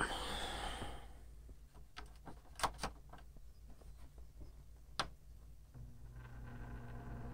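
A brief rustle, then a few sharp clicks from the rotary control knob of a Lakewood LPRW3 window fan. About six seconds in, its motor switches on with a steady low hum and a slowly growing rush of air as the blades spin up.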